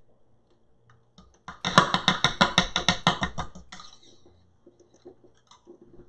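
A quick run of sharp metallic clicks and knocks, about ten a second for roughly two seconds, as the stand mixer's beater and stainless steel bowl are worked loose and taken off, then a few faint ticks.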